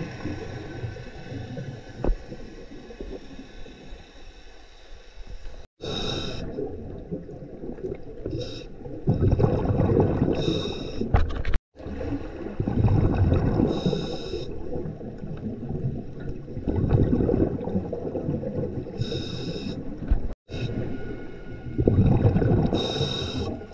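Diver breathing underwater through a regulator: short hissing inhales alternating with loud gurgling bursts of exhaled bubbles, a breath every few seconds. The sound breaks off abruptly three times.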